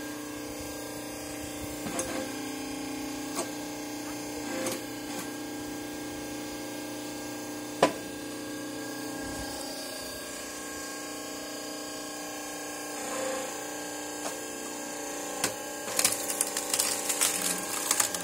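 Electric hydraulic log splitter running with a steady motor and pump hum while a log is forced apart: a few sharp cracks, the loudest about eight seconds in, then a burst of crackling and splintering near the end as the wood splits.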